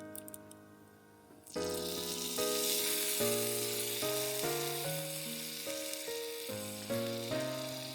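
Chicken frying in hot oil in a miniature pan: a continuous sizzle sets in about a second and a half in, under background music.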